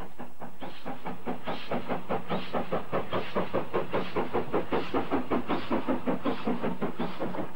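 Steam locomotive working, its exhaust chuffing in a quick, even beat of about five or six a second.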